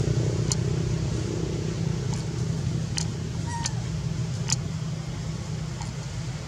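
A steady low motor hum runs throughout, with a few sharp clicks. About three and a half seconds in there is a faint, brief squeak from a baby macaque.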